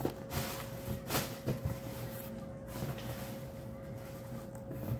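A boxed product being set down and shifted on a granite countertop: a few light knocks and rustles in the first second and a half, then quieter handling, over a faint steady hum.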